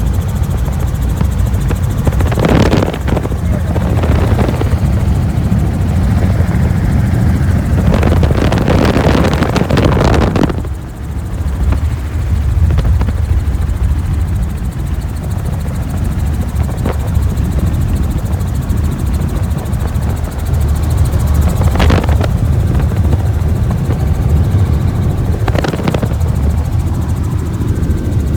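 Helicopter running with a steady low rotor throb, broken by several short louder rushes of noise.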